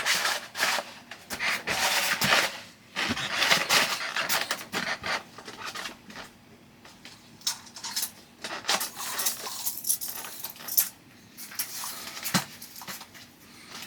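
Thick peel-and-stick vinyl wallpaper being handled and applied to a wardrobe door: dense rustling and crinkling of the sheet, thinning after about six seconds to scattered light clicks and knocks.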